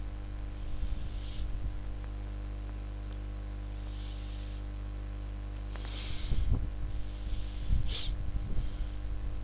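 Steady electrical hum with a thin high-pitched whine from the recording setup, with a few soft clicks and one sharper click about eight seconds in. Low, uneven thumps come in during the second half and are the loudest part.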